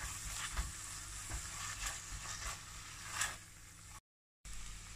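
Onion-tomato masala with curd sizzling in oil and ghee in a pressure cooker, stirred with a silicone spatula in short scraping strokes. The sound cuts out briefly about four seconds in.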